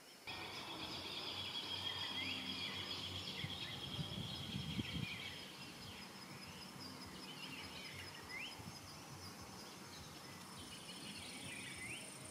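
Forest ambience: a steady high insect drone with scattered short rising bird chirps, and a thinner, higher insect whine joining near the end.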